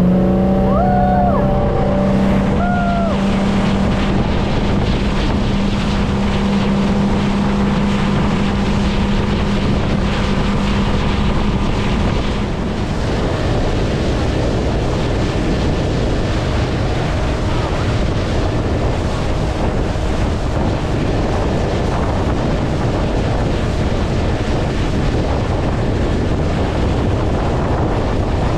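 Constant wind rumble on the microphone. A steady motor-like hum with overtones runs under it for about the first twelve seconds, then stops.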